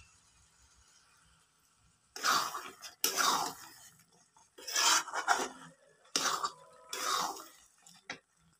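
Flat spatula scraping and stirring thick fish curry around a metal kadai, about five wet strokes, mostly in pairs, starting about two seconds in, with a short knock near the end.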